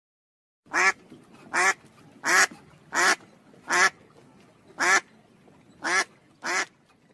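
Mallard hen quacking: a series of about eight loud quacks, one roughly every three quarters of a second, starting under a second in.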